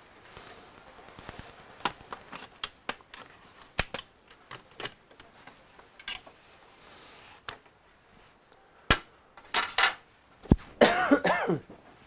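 Aluminium bottom cover of a Dell XPS 15 9500 laptop being prised off by hand: scattered clicks as its clips let go, then a louder run of snaps near the end with a short squeak falling in pitch as the panel comes away.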